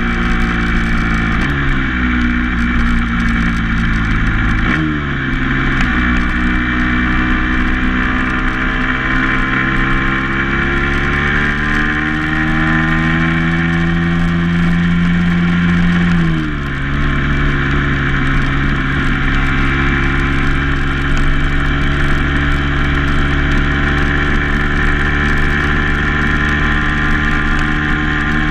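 Vehicle engine pulling along a country lane, its pitch falling suddenly twice in the first five seconds, then climbing slowly for about ten seconds before dropping again. Steady wind and road noise on the microphone.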